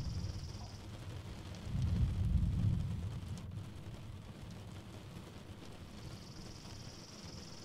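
Thunder rumbling low, swelling about two seconds in and then fading. A steady high-pitched trill sounds over it briefly at the start and again from about six seconds on.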